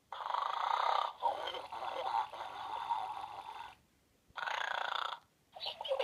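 Recorded snoring played by an electronic plush pig toy: one long snore, a short one about four and a half seconds in, and another starting near the end.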